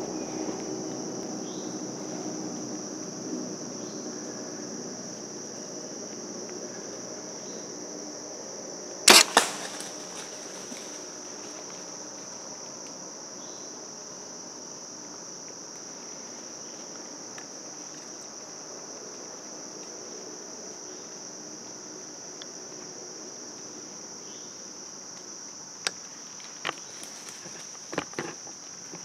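Crickets trilling steadily in a high, even chorus. About nine seconds in comes a single loud, sharp crack, the release of a compound bow shot, followed by a few lighter clicks. Near the end there are a few faint ticks and snaps.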